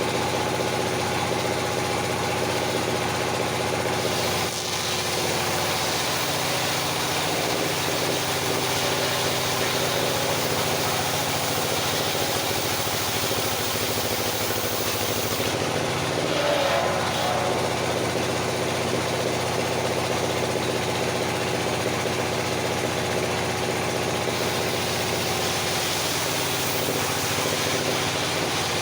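Engine-driven circular sawmill running steadily with an even machine hum, a brief louder patch about sixteen seconds in.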